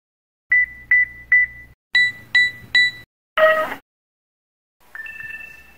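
Mobile phone low-battery alerts. First an LG GS102 sounds six short high beeps in two groups of three, then a brief, louder multi-note tone. Near the end a Verizon LG phone's battery-low tone plays: one held beep on two notes at once.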